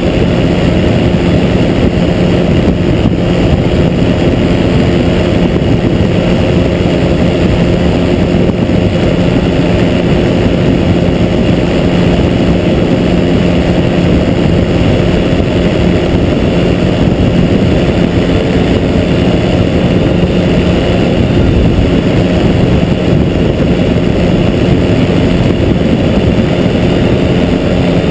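Pegasus Quik flexwing microlight's Rotax 912 engine and propeller droning steadily at cruise power, with wind rushing over the microphone.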